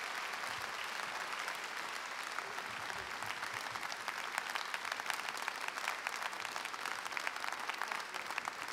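Large audience applauding steadily in a hall. From about four seconds in, individual claps stand out more sharply.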